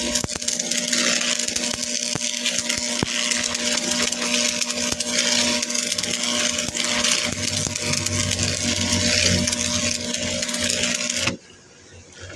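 An electric power tool working steel: a motor hum under a harsh, steady grinding hiss. It cuts off suddenly about eleven seconds in, leaving a low rumble.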